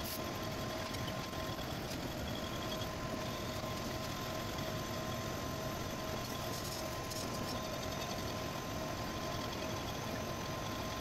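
Metal lathe running at a steady speed, its chuck spinning a cast iron flange; a constant mechanical hum with a steady whine held over it.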